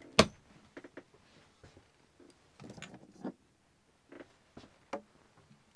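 Camper's overhead kitchen cabinet door opened with a sharp click of its catch. Small clicks and clatter follow as spice jars are taken off the shelf, and a loud sharp click comes at the very end.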